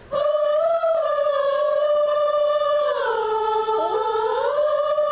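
A chorus singing a warm-up exercise together: after a quick breath at the start, they hold one long note, slide down to a lower pitch about three seconds in, and glide back up near the end.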